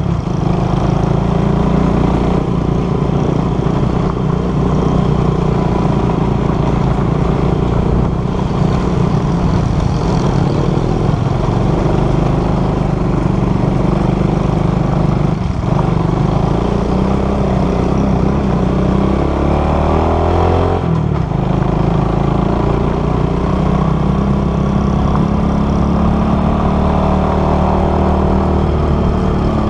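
Motorcycle engine running under way, its note rising and falling, with two brief dips about halfway and about two-thirds of the way through.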